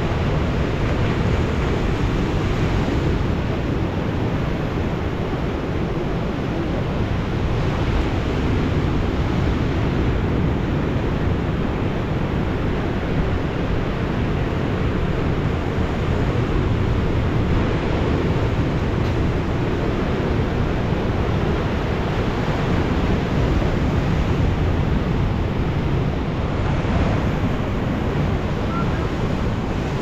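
Rough Black Sea surf in a storm, breaking and washing over shoreline rocks in a steady rush, with wind buffeting the microphone.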